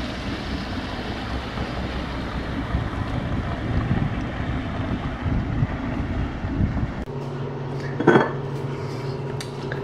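Wind buffeting the microphone, a dense low rush that cuts off abruptly about seven seconds in. It gives way to a steady low electrical hum of a quiet room, with one short sharp noise about a second later.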